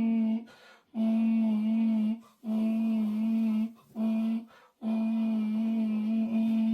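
Vocal stim: a person humming one steady, level low note in long held stretches, broken by four short pauses.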